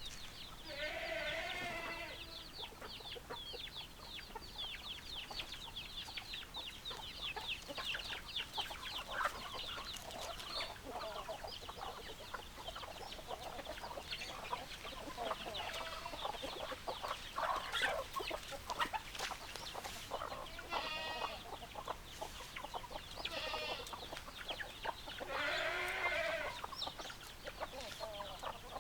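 A flock of chickens clucking and calling, with a dense run of short, high chirping calls and several longer drawn-out calls. The longest of these lasts about two seconds near the end.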